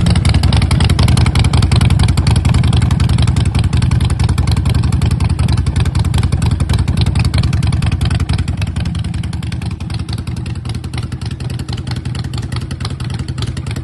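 Harley-Davidson Forty-Eight's 1200 cc air-cooled V-twin idling steadily through slash-cut dual exhaust pipes while warming up after a cold start, getting a little quieter over the last few seconds.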